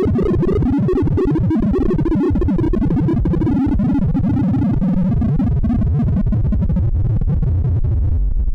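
Sorting-algorithm sonification: a rapid, continuous stream of short synthesized tones whose pitch jumps about constantly, each tone voicing the value of an array element as the algorithm reads or compares it.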